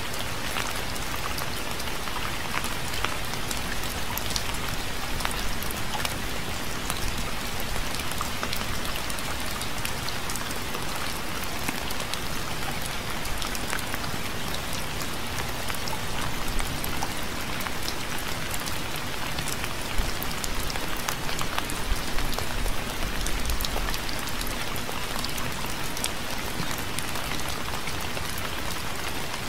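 Steady rain falling, with many separate drop ticks over an even hiss. A brief low rumble swells about two-thirds of the way through.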